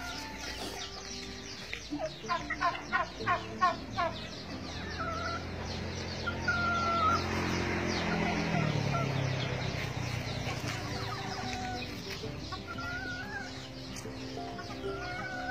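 A bird calling: a quick run of about eight short, rising calls a couple of seconds in, then scattered single calls. A rushing noise with a low hum that drops in pitch swells in the middle.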